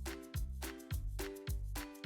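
Background music with a steady beat, about two strong bass beats a second under held chords.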